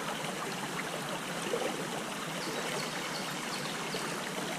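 Shallow creek water flowing and trickling steadily around logs and rocks.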